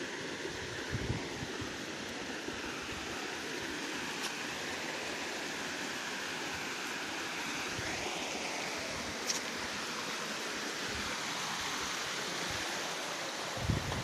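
Steady rushing of a mountain stream flowing over rocks, with a couple of faint clicks; just before the end, low rumbling gusts of wind hit the microphone.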